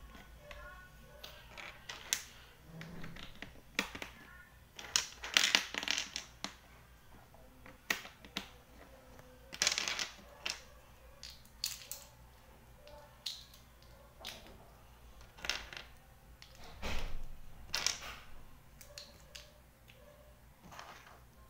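Plastic toy building bricks clicking and clattering on a tabletop as a child snaps pieces together and picks through a pile: irregular small knocks, with a few busier bursts of rattling.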